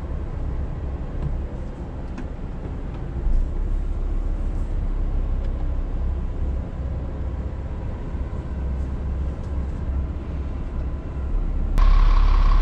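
Scania R410 truck's 13-litre six-cylinder diesel engine running steadily, heard from inside the cab. Near the end the engine is suddenly louder and a reversing alarm starts sounding as the truck backs up.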